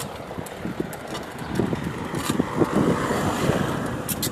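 Wind buffeting a phone's microphone: an irregular rushing rumble that swells through the middle.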